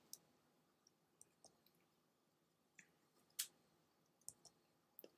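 Near silence with four faint, brief clicks, the clearest about three and a half seconds in.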